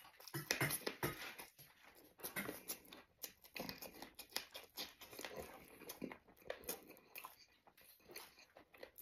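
Close-miked mouth sounds of a man biting and chewing a fresh red chili pepper and a steamed bun: a fast, irregular run of wet smacks and crunches, busiest in the first few seconds.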